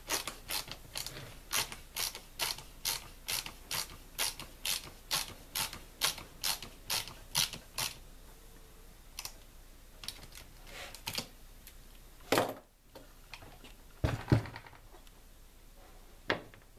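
Ratcheting screwdriver clicking about two to three times a second as a T25 Torx screw is turned into the plastic rear handle housing of a Stihl MS250 chainsaw. After about eight seconds the clicking stops, leaving a few scattered knocks of parts being handled.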